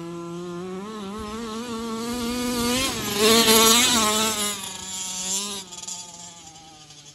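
Losi 5T gas RC truck's two-stroke engine buzzing at high revs as the truck drives in close, its pitch creeping up, loudest as it passes about three to four seconds in, then fading as it drives away.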